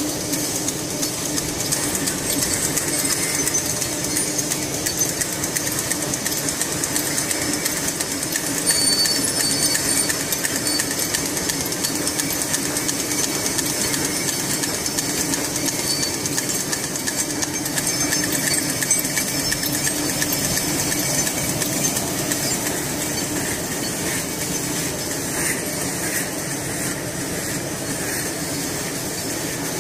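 Automatic plastic-cutlery packing machine running: a steady, rapid mechanical clatter over a constant hum.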